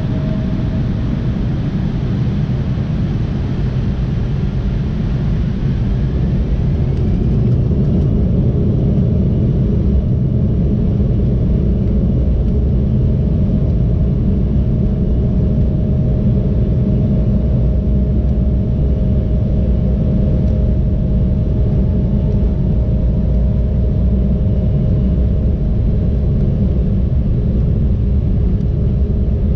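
Embraer ERJ-175's General Electric CF34-8E turbofans spooling up to takeoff thrust, heard from inside the cabin. A whine rises about five seconds in and the sound grows louder, then settles into a steady rumble as the jet accelerates down the runway on its takeoff roll.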